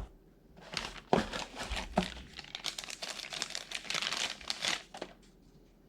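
Packaging crinkling and rustling as it is handled for several seconds, with a couple of sharp knocks about one and two seconds in.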